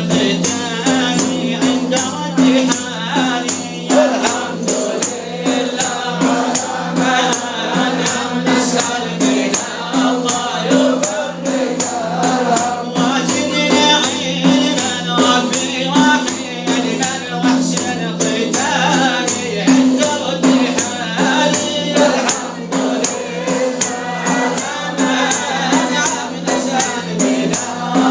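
Sufi devotional chant (inshad) sung by a group of voices over a steady, fast beat of frame drums.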